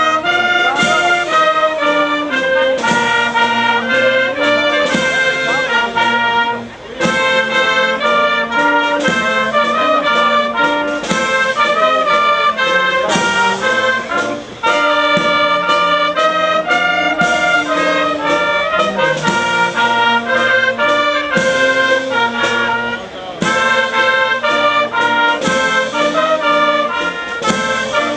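A small wind band of trumpets, clarinet and tuba playing an anthem in slow, held phrases, with brief breaks between phrases.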